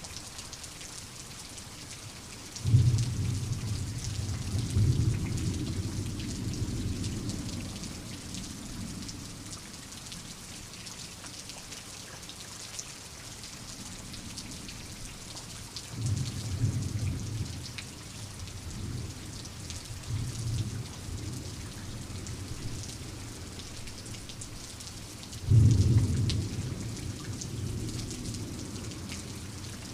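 Steady rain with rolls of thunder: a sudden clap about three seconds in that rumbles on for several seconds, a softer drawn-out roll midway, and another sharp clap near the end that fades away.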